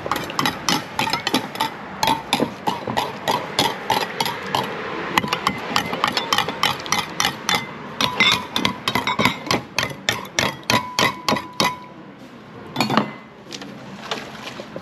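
Rapid metal clinking and tapping of a noodle vendor's utensils against pots and bowls, about four taps a second with a ringing note. The tapping stops near the end, and a single louder knock follows.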